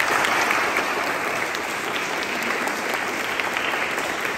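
Audience applause: many people clapping steadily in a hall, a dense patter of overlapping claps.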